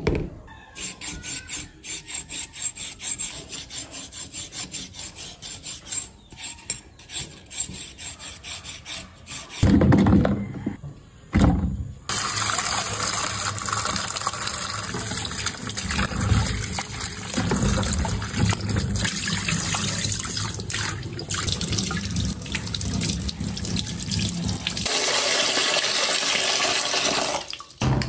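Tap water running steadily over vegetables in a plastic basket in a stainless-steel sink. Before the water there is an even run of short knocks, about three a second, and near the end a brighter hiss takes over for a couple of seconds.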